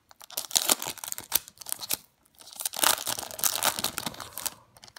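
Foil wrapper of a Topps Series 1 baseball card pack being torn open and crinkled by hand, in two bouts of crackling with a short pause about two seconds in.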